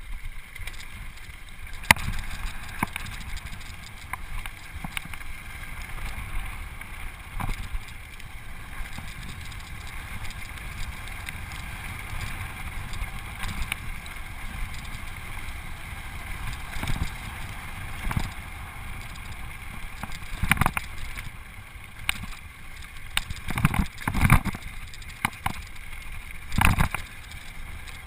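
Rocky Mountain Flatline downhill mountain bike rolling fast down a gravel road: steady tyre and wind noise with a low rumble, broken by sharp clacks and rattles of the bike over bumps. The clacks come thicker and louder in the last third.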